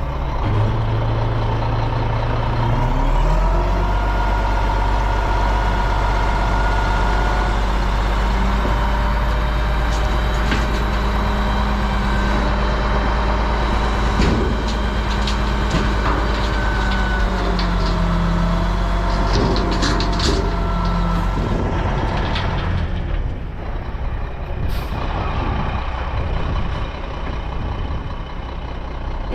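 CAT 279D compact track loader's diesel engine running hard under load while pushing dirt, its pitch shifting as the revs change; it eases off near the end.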